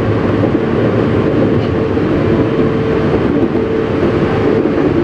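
Tobu Railway commuter train running at steady speed, heard from inside its front car: a continuous rumble of wheels on rail with a steady single-pitch hum running through it.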